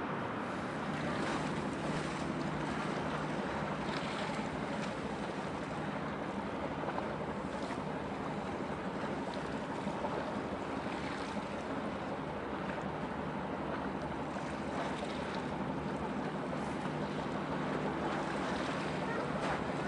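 Steady low drone of a passing bulk carrier's engine across the water, with wind buffeting the microphone and waves washing.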